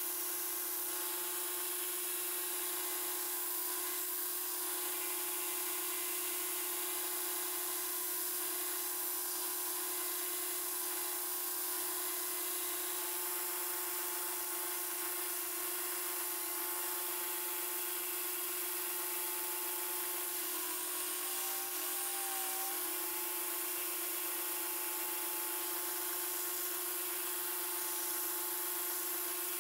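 Belt grinder running with a steady hum and whine while a thin wooden template is sanded against the abrasive belt. The pitch dips briefly about two-thirds of the way through.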